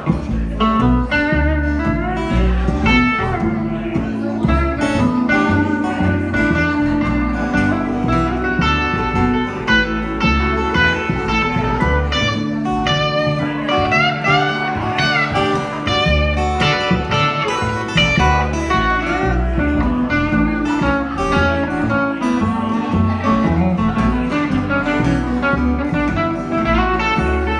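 Live blues band instrumental: a Telecaster-style electric guitar plays a solo of single notes, some bent so they glide in pitch, over an upright bass keeping a steady low line.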